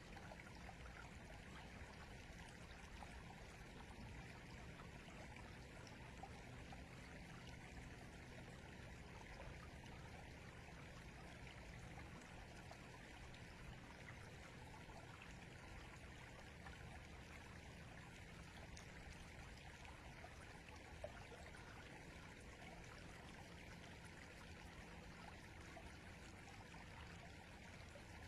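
River water flowing, a faint, steady rush without pauses.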